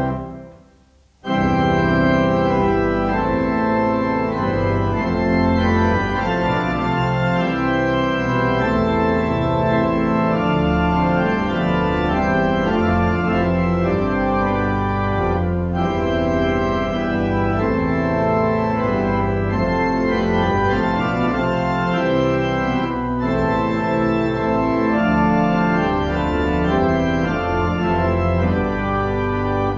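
Organ playing a hymn tune in full, sustained chords. It falls silent at the very start and comes back in about a second later for the next verse, then breaks off again at the end.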